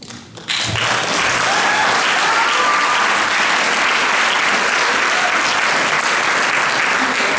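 Theatre audience applauding, starting suddenly about half a second in and holding steady.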